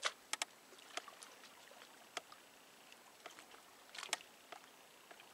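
Quiet, with a few faint, sharp clicks and taps at uneven intervals; the loudest come at the very start and as a pair about four seconds in.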